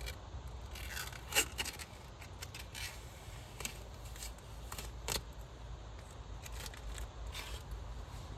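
Thin protective plastic film crinkling and crackling as it is peeled off a graphics card, in scattered small crackles with a couple of louder snaps, over a steady low rumble.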